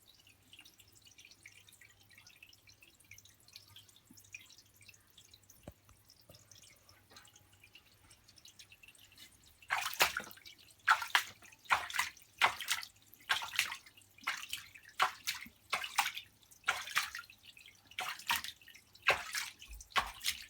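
Water in a bathtub: a faint trickle, then from about halfway a steady run of sharp splashes, roughly one or two a second.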